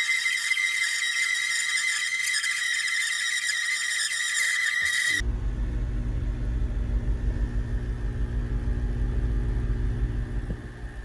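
A steady, high-pitched squealing tone lasts about five seconds and stops abruptly. It gives way to the steady low drone of a sailboat's engine running.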